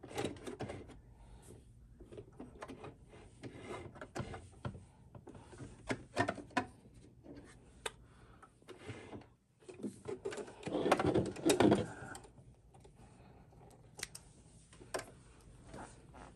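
Electric sewing machine stitching a short seam for about two seconds, a little past the middle, amid scattered clicks and rustles of fabric being handled and positioned under the presser foot. Near the end, small clicks of thread snips trimming the threads.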